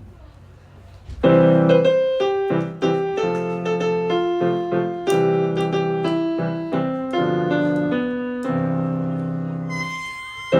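Solo piano playing a slow melody over sustained lower notes, starting about a second in with notes that ring and decay after each strike.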